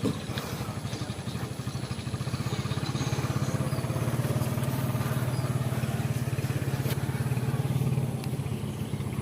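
A small engine running with a steady low hum, getting louder toward the middle and fading about a second before the end.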